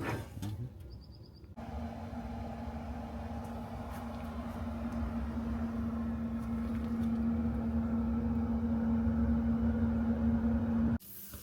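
A steady machine hum with a rushing noise beneath it, growing slowly louder; it starts suddenly about a second and a half in and cuts off near the end.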